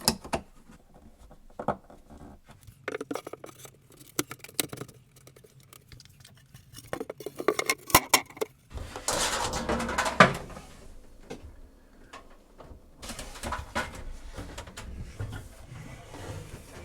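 Clicks, rattles and rustling of small metal parts and electrical wires being handled, with two louder stretches of scraping about halfway through and near the end.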